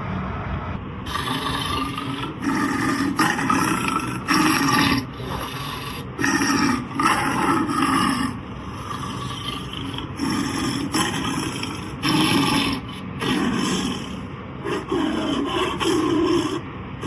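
Recorded animal calls played back: a series of short calls, each about half a second to a second long, repeated with brief pauses over a steady background.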